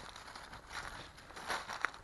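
Footsteps of a person walking outdoors on the ground, a few irregular steps, the loudest near the end.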